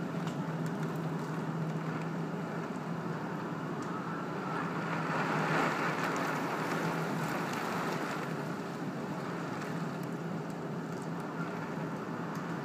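Steady rain and wind of a thunderstorm, a continuous hiss that swells briefly about five seconds in, under a low steady hum that fades out about seven seconds in.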